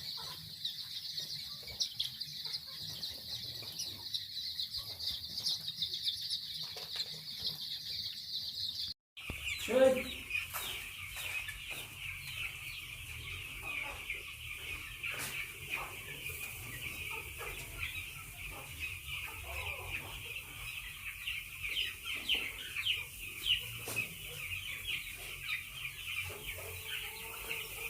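Dense, steady chorus of many poultry chicks peeping in a chicken shed, with occasional clucks and wing flaps from the chickens. About 9 s in the sound cuts briefly, and after it the peeping sits a little lower with a low steady hum underneath.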